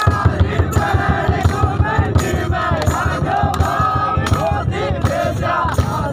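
A large crowd singing and shouting together over a quick, steady thumping beat, a few beats a second.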